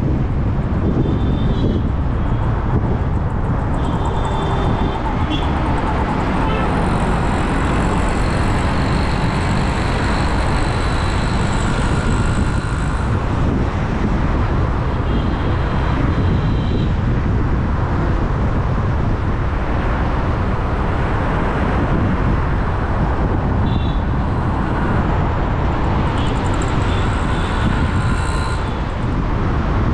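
Steady road and traffic noise from a moving vehicle in city traffic: a dense low rumble of tyres, engines and wind. Brief faint high tones come now and then.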